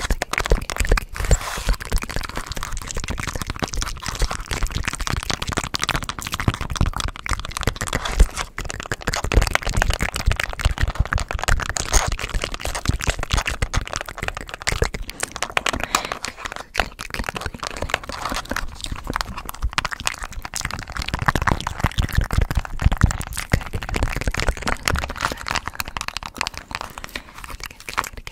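Fast, close-miked ASMR hand movements and mouth sounds: dense, irregular crackling and crunchy clicks with no pauses.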